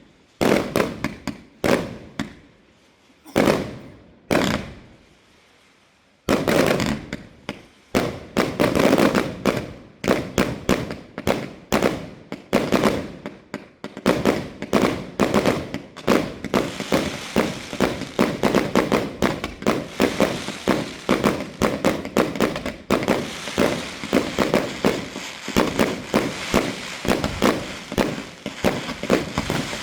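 Fireworks going off: a few separate bangs, a short lull, then from about six seconds in a rapid barrage of bangs that thickens into a near-continuous crackling volley.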